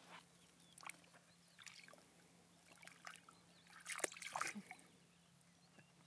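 Faint, scattered wet splashes and lapping as a dog noses and laps in shallow water full of frog spawn, with a short louder cluster of splashes about four seconds in.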